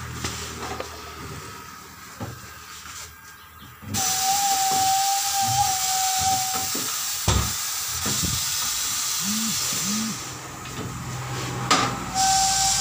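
Compressed air hissing with a steady whistling tone, starting about four seconds in, stopping near ten seconds and starting again near the end. There is a single sharp knock in the middle.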